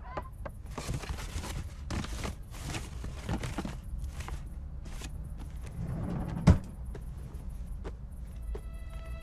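Irregular rustling and shuffling movement noises over a low steady hum, with one sharp loud click about six and a half seconds in.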